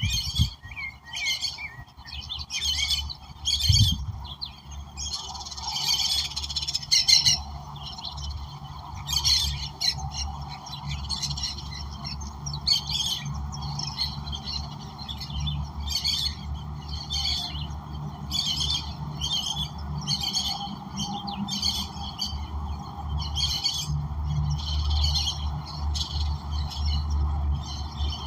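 Wild birds calling in a soundscape: short chirping calls repeated about once a second, over a steady low hum.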